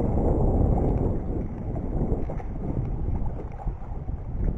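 Wind buffeting the microphone: an uneven low rumble, heaviest at first and easing a little after a second or two.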